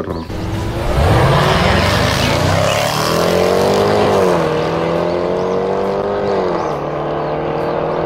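Two cars, a Range Rover SUV and a sports coupe, accelerating hard from a standing start in a drag race. The engine note climbs and drops twice, about four and six and a half seconds in, as they change up through the gears.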